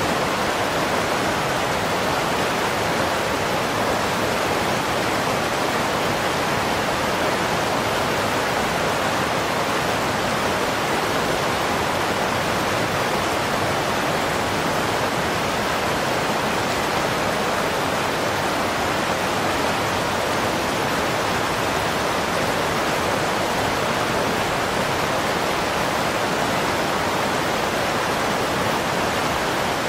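A steady, unchanging rushing noise like torrential water, level and even throughout with no distinct events.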